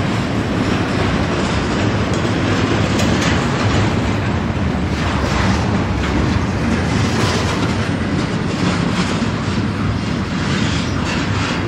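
Intermodal well cars of a freight train rolling past, steel wheels clicking over the rail joints in a steady clatter. The sound eases slightly near the end as the last car goes by.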